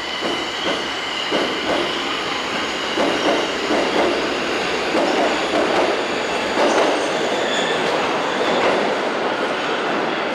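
Tokyo Metro 1000 series train moving through the station, its wheels clattering in a quick irregular rhythm over rail joints and points, with a high steady squeal or whine over the running noise.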